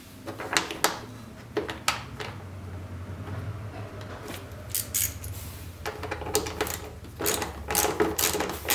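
Hand ratchet clicking in short runs while the CVT cover case bolts are hand-tightened, with a low steady hum underneath.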